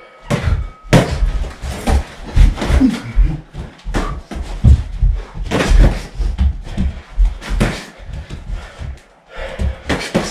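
Boxing gloves smacking on punches and blocks during sparring: an irregular string of sharp, loud slaps and thuds.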